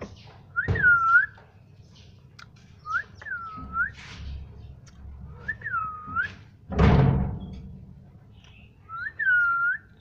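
Indian ringneck parakeet whistling: four short whistles that dip down and rise back up, a few seconds apart. About seven seconds in there is a loud, harsh rushing burst that fades out over about a second.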